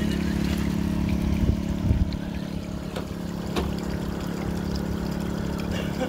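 Portable generator engine running at a steady speed, giving an even hum. Water splashes and trickles, with a few short knocks as a radio-controlled scale crawler works through a shallow, rocky stream.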